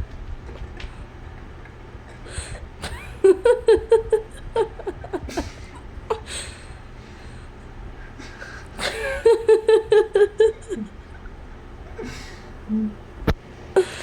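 Laughter in two bouts, the first about three seconds in and the second about nine seconds in, each a quick run of "ha-ha" pulses.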